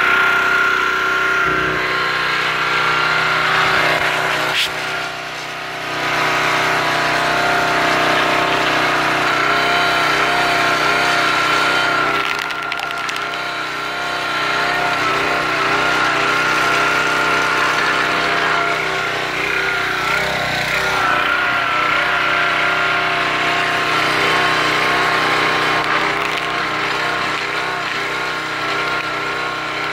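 Briggs & Stratton overhead-valve small engine, swapped from a pressure washer onto a log splitter, running steadily at constant speed and driving the splitter's hydraulic pump, with a steady high whine over the engine note and a couple of brief dips in level.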